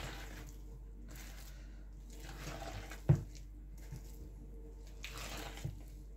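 Thick banana bread batter squelching as it is mixed by hand in a plastic bowl, in soft squishes every couple of seconds, with one sharp knock about three seconds in.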